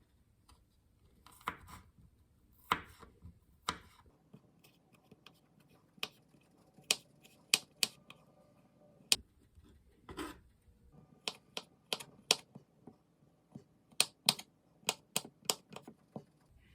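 Kitchen knife chopping on a cutting board: irregular sharp knocks, some in quick runs of three or four.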